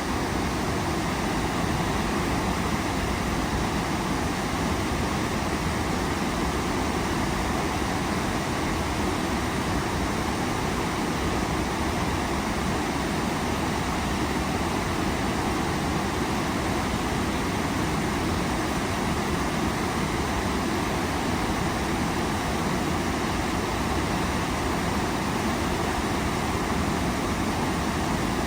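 Waterfall crashing down continuously: a loud, steady rush of falling water.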